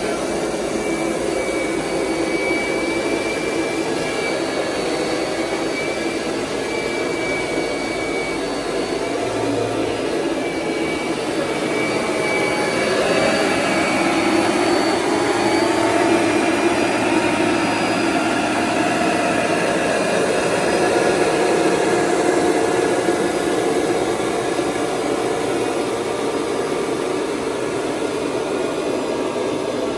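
Kirby G5 upright vacuum cleaner running steadily with the carpet shampoo attachment fitted and the self-propelled drive engaged, a continuous motor noise with a faint whine. It gets slightly louder for a stretch in the middle.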